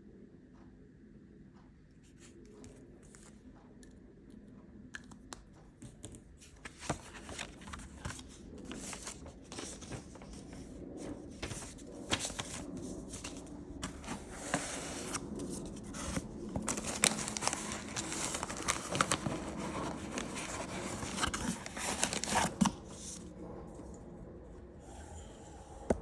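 Packaging being handled and wrapped: crinkling, tearing and cutting sounds. They are faint at first, busy and crackly from about seven seconds in, and die down a few seconds before the end.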